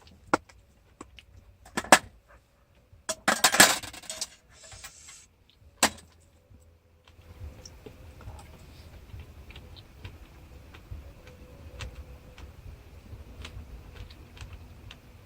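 Sharp clinks and clatters of camp dishes and utensils being handled, with a denser clatter about three to four seconds in. After about seven seconds the clinking gives way to a quieter, steady low rumble with faint scattered ticks.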